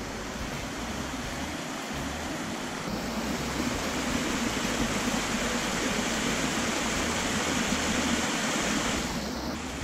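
Small waterfall cascading over rocks into a pool: a steady rush of falling water, growing a little louder about three seconds in.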